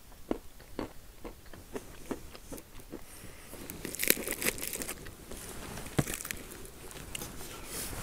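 Close-miked handling noise from a titanium cook pot and the crinkly things packed in it: small crunching clicks about two a second, then brighter crinkling about four seconds in and a sharp click near six seconds.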